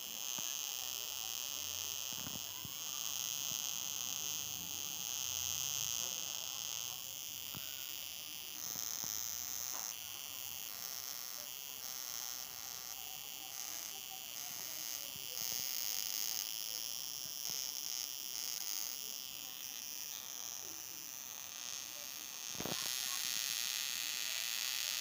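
Small 3.7-volt Tesla coil driven by a single 3055 transistor, running with its sparks arcing to a scissor blade and a fingertip: a steady, high-pitched buzzing hiss that steps up and down in loudness every few seconds. There is one click near the end, after which the buzz is louder.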